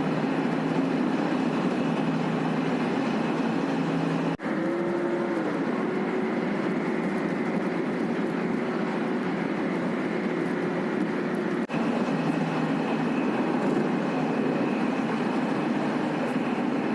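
A motor vehicle's engine running steadily with road noise, heard as one continuous drone. A little after the first of two brief breaks, the engine's pitch drops for about a second, then holds.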